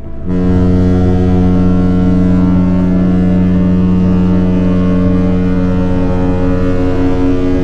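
Mein Schiff 6 cruise ship's horn sounding one long, steady, deep blast for departure; it starts just after the beginning and holds at an even pitch throughout.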